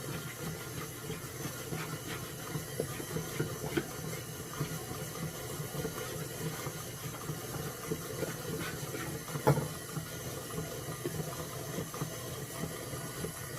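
Soft scraping, rustling and light taps of a measuring cup scooping flour and pouring it into a mixing bowl, over a steady background hiss, with a sharper knock about nine and a half seconds in.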